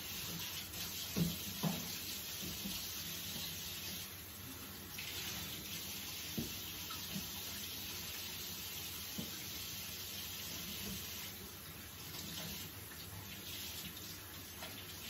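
Kitchen sink tap running while dough is washed off a hand, with a few small knocks from things being handled. The flow dips briefly about four seconds in.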